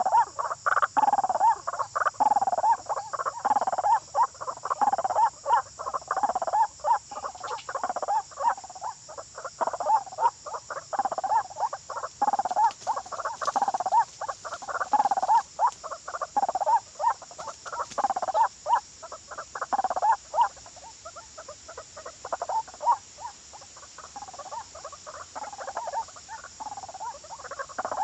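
White-breasted waterhen calling: harsh, croaking calls made of rapid clicky pulses, repeated about once a second without pause. A steady high hiss runs underneath.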